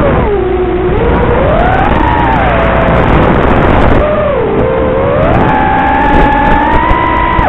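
Brushless motors of an X210 FPV quadcopter whining, heard through the quad's onboard microphone over a rushing hiss of wind and propeller noise. The whine's pitch follows the throttle: it dips about half a second in, climbs around two seconds, drops again past four seconds, and holds higher from about five and a half seconds to the end.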